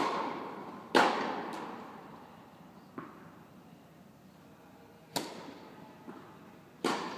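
Tennis serve: the racket strikes the ball with a sharp crack that echoes through a large indoor tennis hall, followed about a second later by another loud ball impact. Several quieter, echoing ball knocks follow over the next few seconds.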